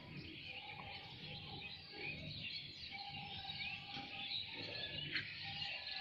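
Faint, busy chirping of many small birds, with a few short held whistled notes mixed in.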